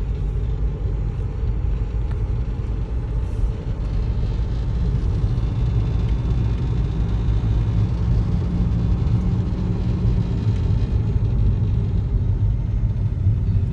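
Steady rumble of a moving car heard from inside the cabin: road and engine noise while cruising.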